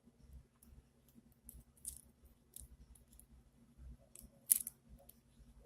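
Faint, scattered small ticks and clicks of tools and tiny phone parts being handled while a charging-port flex cable is seated into an iPhone 7 Plus, with one sharper click about four and a half seconds in. A faint steady low hum runs underneath.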